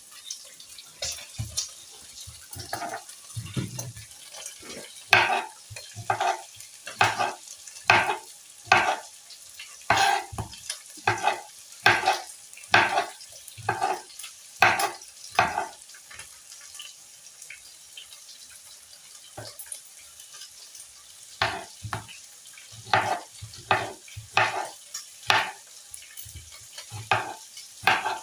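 Knife cutting tomatoes on a cutting board: separate chopping strokes a little over one a second, pausing for a few seconds past the middle before resuming.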